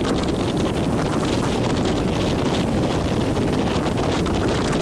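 Rough sea surf breaking and churning against a rock breakwater, with strong wind buffeting the microphone in a steady, loud rush.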